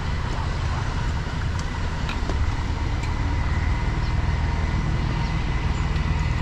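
An engine running steadily at an even, low speed, a continuous low rumble with a faint steady whine on top.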